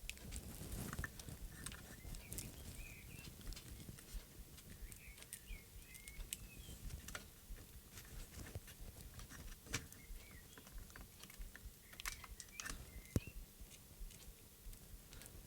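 Faint, irregular light clicks and taps of small plastic parts and tools being handled inside an opened RC radio transmitter.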